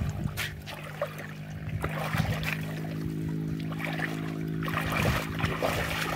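Shallow muddy water sloshing and splashing as a person wades and gropes through it by hand, with a steady low hum underneath.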